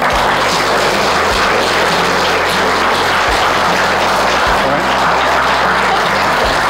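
A room full of wedding guests applauding, loud and steady, cut off suddenly near the end.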